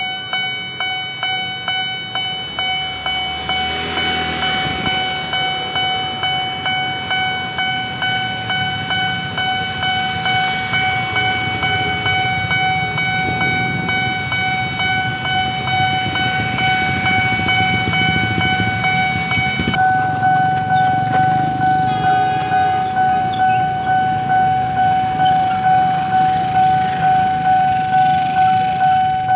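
Railway level-crossing warning bell ringing as the barrier comes down, a steady electronic ding repeating about one and a half times a second.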